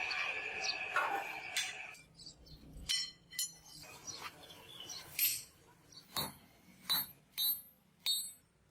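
Metal striking metal: a series of sharp clinks, each with a bright ringing tone, about eight of them at uneven intervals. They follow a steady noisy sound with a high hum that stops about two seconds in.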